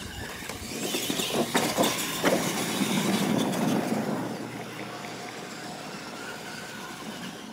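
Radio-controlled monster trucks driving over a dirt track, tyres scrabbling on the dirt, with a few sharp knocks about one and a half to two seconds in. A louder stretch follows, then a steadier, quieter run.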